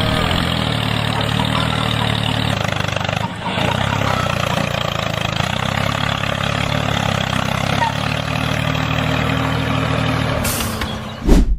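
Tractor engine running steadily with an even low hum. A brief loud burst comes near the end, then the sound cuts off abruptly.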